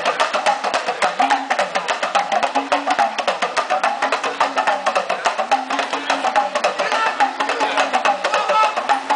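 Fast drumming on a tama, the Senegalese talking drum: a dense run of sharp strokes, many a second, with notes that bend up and down in pitch.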